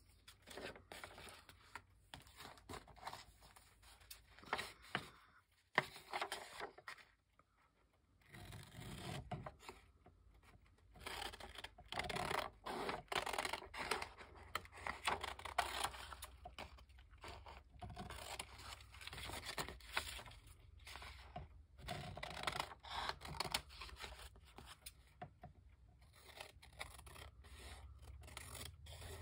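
Paper being handled and worked at a craft table: a run of irregular scraping and rustling strokes on paper, with a short quiet gap about six to eight seconds in.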